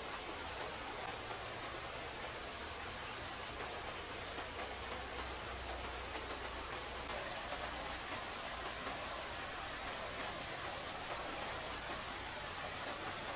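Steady rush of flowing stream water with a high, even insect drone over it.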